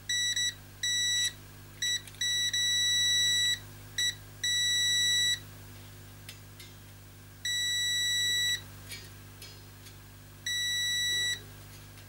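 Digital multimeter's continuity beeper sounding on and off, one steady high-pitched tone in about eight beeps of uneven length, the longest over a second, as the test probes make and break contact on a hair dryer's heating element coil. The beep signals continuity through the bodged, repaired element.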